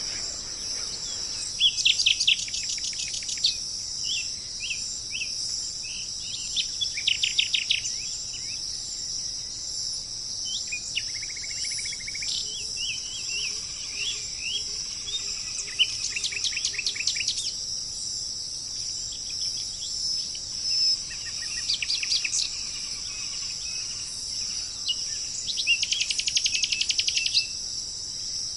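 Wild songbirds singing in short, fast trilled phrases that come again every few seconds, over a steady high drone of insects.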